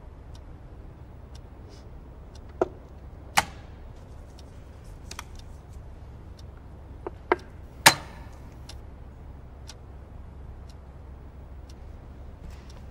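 A chess clock ticking faintly about once a second, over a low room hum. A handful of sharp clacks of chess pieces set down on the board and the clock button pressed, the loudest just before eight seconds in.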